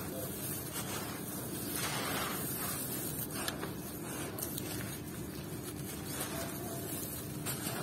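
Moulded lumps of sand and gravel being crushed and crumbled in bare hands: a continuous gritty crunching with grains trickling and scraping, and a few sharper crunches here and there.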